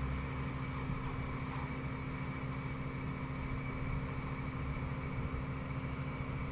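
Excavator's diesel engine running steadily at an even speed.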